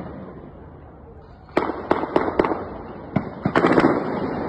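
A string of about eight sharp bangs in quick, irregular succession, starting about a second and a half in, each followed by an echoing tail, with the last few packed close together near the end.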